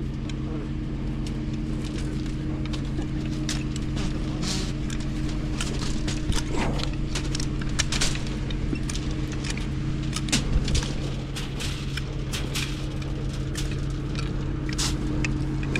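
A Reed B50G concrete pump's 7.3-litre Ford Godzilla V8 engine running at a steady speed while pumping, with irregular sharp clicks and knocks over it.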